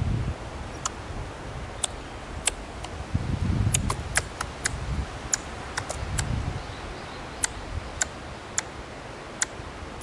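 Ezo squirrel (the Hokkaido race of the Eurasian red squirrel) giving sharp, tongue-click-like calls, about fifteen of them at irregular intervals, which the uploader takes for a threat call.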